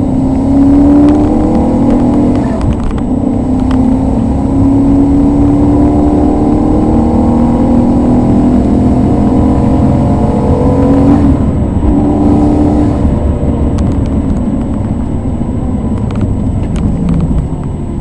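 Maserati 3200 GT's twin-turbo V8, tuned to 460 cv, heard from inside the cabin under hard acceleration down a straight. The engine note climbs steadily for most of the first eleven seconds, drops sharply, then climbs again and eases off near the end.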